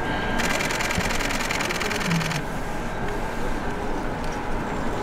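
A camera shutter firing in a rapid continuous burst for about two seconds, starting just after the beginning, over steady background noise.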